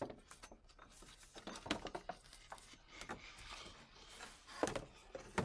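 Faint rubbing and a few light knocks as a gloved hand works a loose ribbed serpentine belt off the engine's pulleys. The loudest knocks come near the end.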